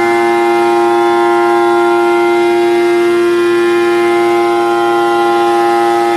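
Fidia GTF/R gantry milling machine with an M5E head roughing a cylinder: a loud whine held at one steady pitch, with many overtones above it.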